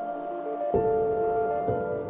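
Background music: slow ambient music of held tones, with a new chord coming in under a second in.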